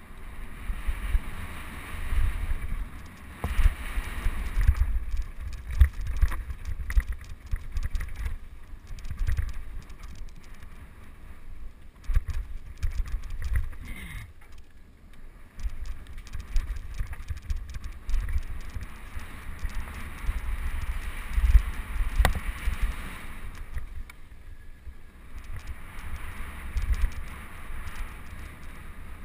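Wind buffeting an on-board camera's microphone as a mountain bike descends a dry dirt trail at speed. Tyres hiss over the dirt, with frequent sharp clicks and knocks from the bike rattling over bumps.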